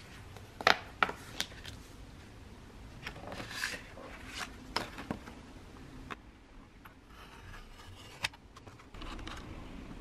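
Hands handling a plastic paper trimmer and photo prints on a wooden desk: a scatter of sharp clicks and taps, the loudest about a second in, with quieter handling noise between them.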